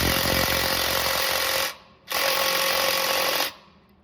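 Cordless impact gun run in two bursts, of about a second and a half each with a short pause between, on a bolt of the brake assembly.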